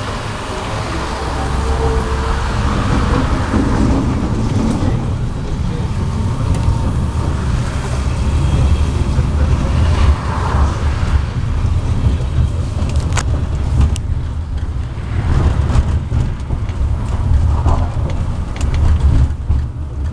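A KTM-19 tram running, heard from inside the car: a steady low rumble from its wheels and running gear, growing louder over the first two seconds. Sharp clicks and knocks come in the second half.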